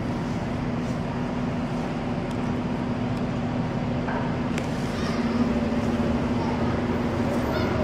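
Steady low rumble of street traffic with a constant hum, and a few faint clicks.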